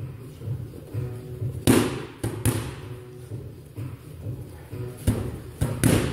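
Boxing gloves punching focus mitts: sharp smacks in short clusters, about two seconds in and again near the end, over background music.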